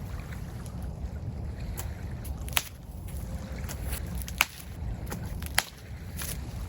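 Low, steady wind rumble on the microphone with several short, sharp clicks or snaps spread through it.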